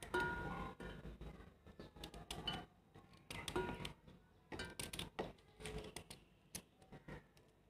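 Irregular clicks and taps of a knife cutting dried coconut kernel into small pieces that drop into a stainless steel grinder jar, with a brief ringing tone twice.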